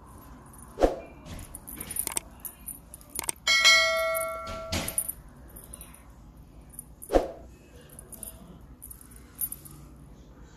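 Small bells on a cat's feather wand toy jingling and tinkling as a kitten bats at it, with one bell tone ringing out clearly for about a second in the middle. Two sharp knocks, one near the start and one about two-thirds of the way through.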